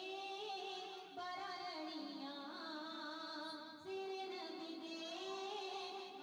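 Background music: a voice sings a melody in long, sliding notes over instrumental accompaniment, with short breaks between phrases about a second in and near four seconds.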